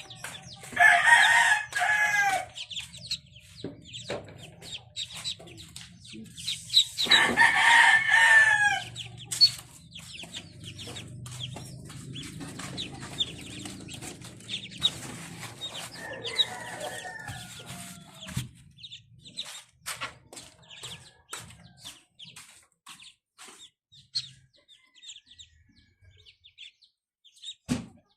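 A rooster crowing twice, long calls about a second in and again around seven seconds in, with a fainter third crow near sixteen seconds. Between them, many short high peeps of ducklings run on.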